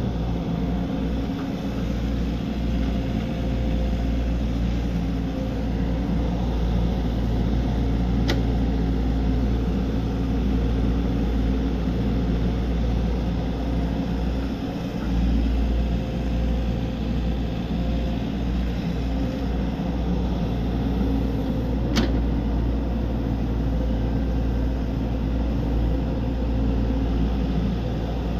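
Excavator's diesel engine running steadily, with two sharp clicks, one about eight seconds in and one about twenty-two seconds in.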